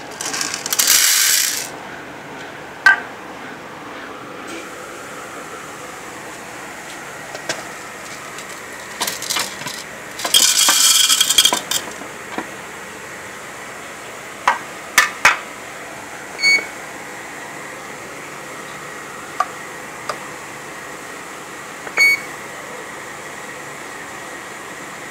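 Handling of a coffee grinder and a digital kitchen scale: two short noisy bursts about a second long, one near the start and one about ten seconds in, with scattered sharp clicks. Two short electronic beeps from the scale come about sixteen and twenty-two seconds in, the second as the scale switches on.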